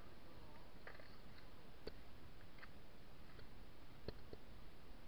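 Quiet background hiss with a few scattered small clicks and ticks.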